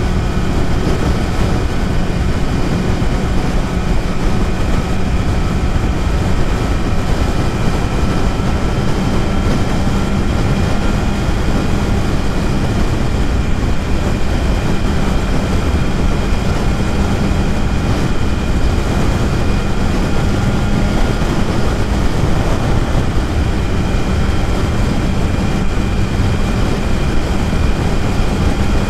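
BMW S1000RR sport bike's inline-four engine running steadily at cruising speed, under a dense, constant rush of noise, its higher tones creeping up slightly in pitch.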